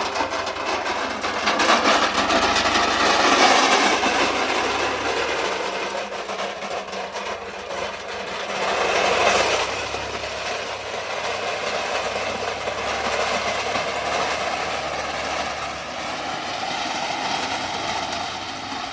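Diesel engine of heavy construction machinery running steadily, swelling louder twice: about two to four seconds in and again around nine seconds in.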